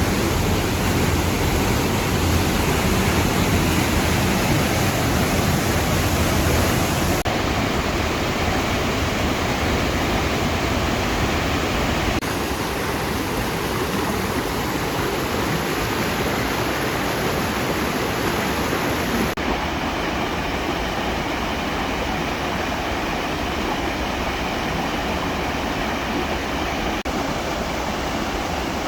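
Waterfall rushing steadily: a dense, even noise of falling water. It changes character abruptly a few times, as if cut between shots.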